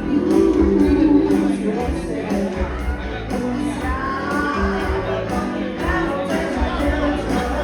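Band music with a steady drum beat, bass and singing, an upbeat groove.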